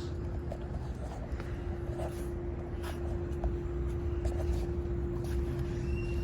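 Steady hum with a low rumble underneath, the running sound of an outdoor air-conditioning condensing unit.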